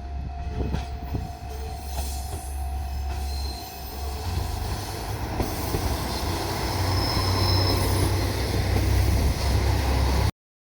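Diesel railcar running close by with a steady low engine rumble. Brief high wheel squeals come about a third of the way in and again past the middle. The sound grows louder toward the end, then cuts off suddenly.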